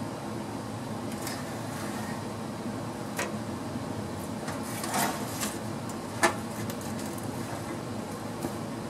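A homemade chip tray cut from old shelving, loaded with metal turnings, being slid out from under a mini lathe and lifted. It gives a few light knocks and scrapes, the sharpest about six seconds in, over a steady background hum.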